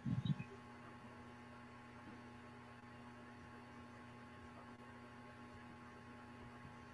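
Faint steady electrical hum made of a few fixed tones, the idle line noise of an online call, with a few short soft thumps in the first half second.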